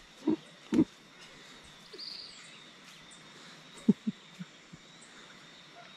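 Dawn woodland ambience: a steady high insect drone and a brief bird chirp, broken by a few soft thuds, two near the start and a quick cluster about four seconds in.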